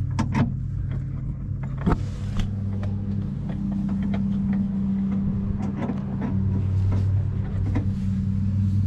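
A steady low motor hum runs throughout, with scattered clicks and metal knocks from the camper's turnbuckles being fitted and tightened by hand. A sharp knock stands out about two seconds in.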